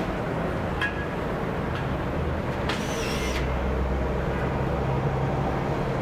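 City street traffic: a steady hum of passing vehicles, with a heavier engine rumble building from about halfway through and a short hiss about three seconds in.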